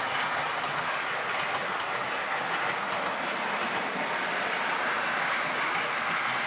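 Hornby Railroad R3171 LNER P2 model locomotive and its rake of coaches running along OO-gauge track: a steady rolling whirr from the motor and wheels on the rails.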